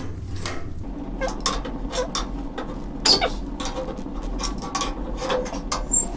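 Wood fire in a fireplace crackling with irregular sharp pops, mixed with light clinks of metal being handled. A low steady hum comes in about a second in.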